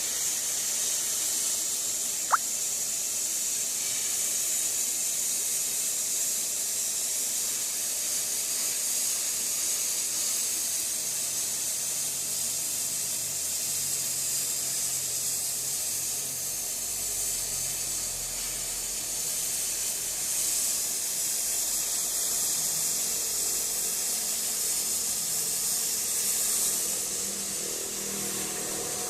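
Gas cutting torch on a track-type cutting machine giving a steady jet hiss as it cuts through 10 mm Hardox steel plate. A single sharp click comes about two seconds in.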